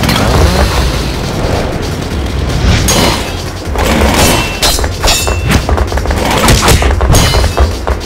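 Fight sound effects: repeated sharp metallic clashes of blades on a chainsaw, some with a brief ring, and booming impacts over loud music, with a steady low rumble beneath.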